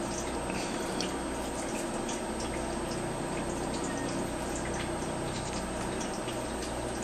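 Steady background hiss with a low hum and a thin high whine: room tone and recording noise, with a few faint light ticks.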